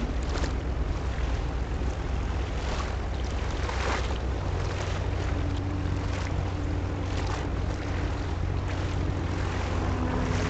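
Steady low rumble of a large container ship passing close by, with wind buffeting the microphone and waves washing, and a faint steady hum joining about halfway through.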